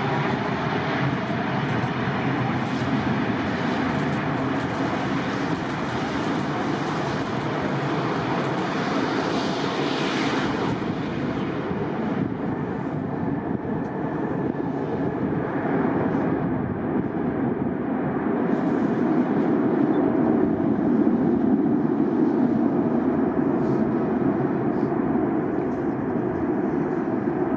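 Airbus A400M's four TP400 turboprop engines running steadily through approach and landing roll. The higher hiss fades about halfway through, and the noise swells again about 18 s in as the propellers blow spray forward on the rollout, typical of reverse pitch being used to brake.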